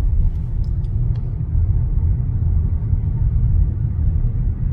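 Steady low rumble of a car inside its cabin in slow traffic, with a few faint ticks about a second in.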